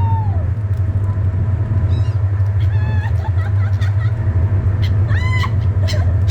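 Seagulls calling: short arched cries near the start, a few around two to three seconds in and a louder one about five seconds in, over a steady low rumble.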